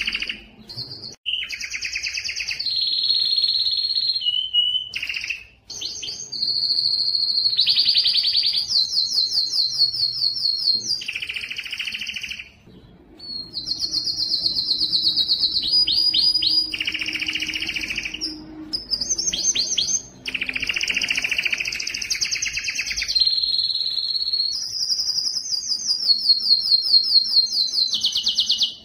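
Male domestic canary singing a long breeding song: phrase after phrase of fast, high trills and rolls, each phrase a rapid run of repeated notes, with short breaks between phrases.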